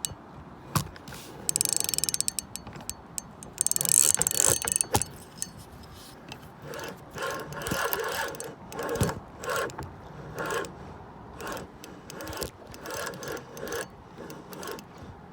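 Fishing reel clicking and ratcheting while a hooked fish is fought on the rod, with two runs of rapid clicking in the first five seconds and uneven bursts of reel noise after that.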